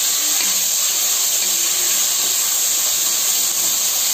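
Chopped vegetables and schezwan sauce sizzling in hot oil in a kadai on high flame, with a steady high hiss, as a spatula stirs them.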